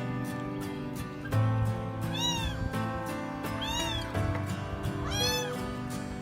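A cat meowing three times, about a second and a half apart, each meow rising then falling in pitch, over background music with a steady beat.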